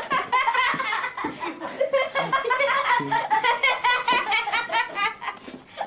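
A person laughing hard off camera: a long run of rapid, high-pitched laughs.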